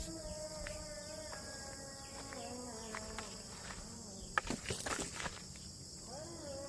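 Steady high-pitched chirring of insects, crickets or cicadas, with faint held tones that step in pitch. A short run of sharp clicks and knocks comes about four and a half seconds in.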